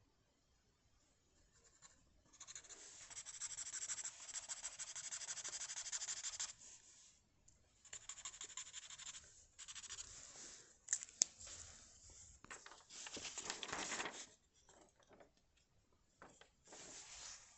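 A drawing tool scratching across paper in rapid back-and-forth strokes, as in shading or colouring in. After a quiet start, a long run of strokes comes, then shorter bursts with pauses, a single sharp tap about eleven seconds in, and another run of strokes.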